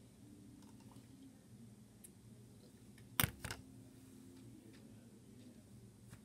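A plastic drinking cup set down on a hard surface: one sharp knock about three seconds in, then a smaller one just after.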